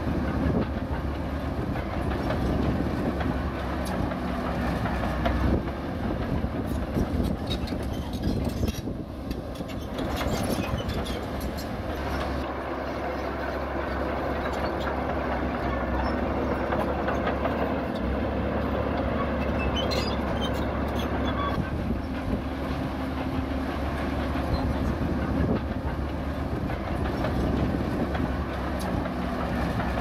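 Zoomlion ZD160S-3 crawler bulldozer working: its diesel engine runs steadily under a scattered clatter from its steel tracks.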